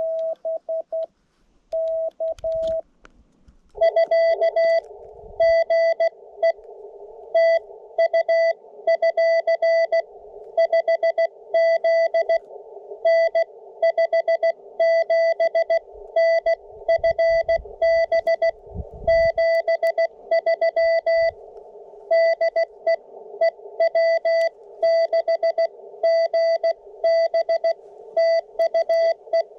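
Morse code on a portable HF amateur radio. For about the first three seconds it is the operator's own keying, a clean sidetone beep. Then the receiver comes back with a band of hiss, and a distant station's Morse comes through as a keyed tone of steady dots and dashes.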